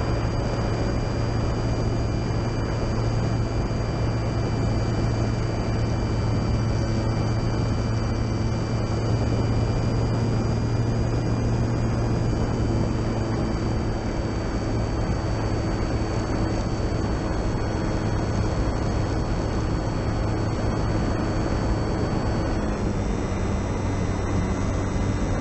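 Electric motor and propeller of a Durafly Tundra RC plane running steadily in flight, a constant whine over a low hum. The pitch shifts slightly partway through and steps down near the end as the throttle is eased.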